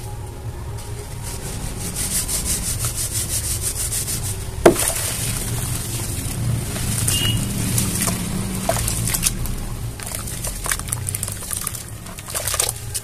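Soft, dry pure-cement blocks being crushed and crumbled in bare hands, with dense gritty crackling and one sharp crack about five seconds in. Near the end the hands go into the water of the tub.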